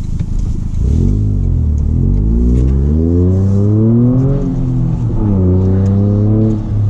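Toyota GR Corolla's turbocharged three-cylinder engine accelerating. Its pitch climbs for several seconds, drops and picks up again about halfway through, then eases off near the end.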